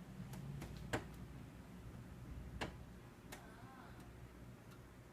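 A handful of sharp, irregular clicks over a low steady hum, the loudest about a second in, with a short wavering chirp-like tone about three and a half seconds in.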